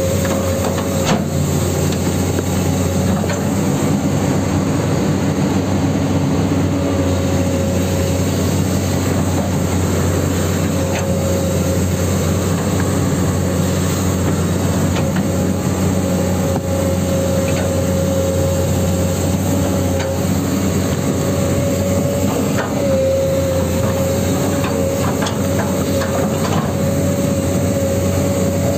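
Huina 1594 RC excavator's motors and metal gearing running steadily with a whine that comes and goes, and a few sharp clicks as it digs sand.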